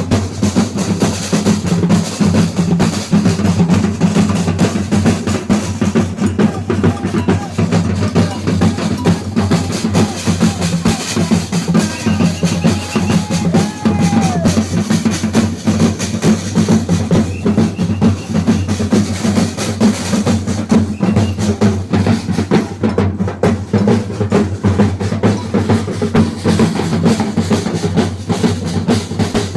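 Percussion band of a bumba-meu-boi carnival group playing a fast, dense drum beat, with deep bass drums under rattling snare drums.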